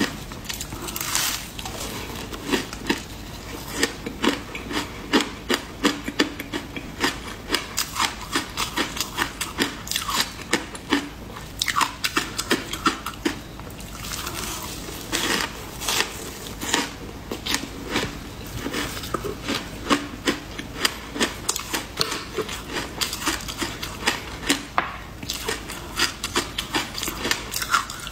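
Frozen ice coated in matcha powder being bitten and chewed close to the microphone: dense, irregular sharp crunches and cracks, several a second, as the ice breaks between the teeth.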